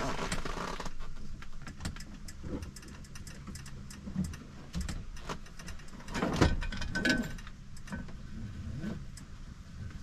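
Clicks, knocks and light rattles of hands working a throttle-lock cable and fittings under a truck's dashboard, with one louder knock about six and a half seconds in, over a steady low hum.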